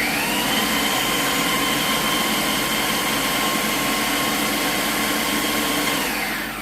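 Electric blender running at high speed, grinding a dry mix of nuts and cacao powder into a coarse crumb. It is a steady, loud whine with a grinding rattle, and it winds down near the end.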